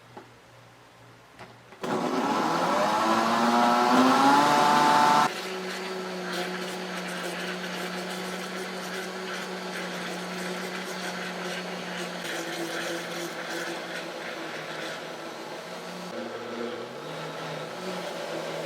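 Countertop blender mixing a batter of milk, oil, egg and flour. It starts about two seconds in, its motor whine rising in pitch as it spins up. About five seconds in it drops suddenly to a lower, quieter steady hum that runs on.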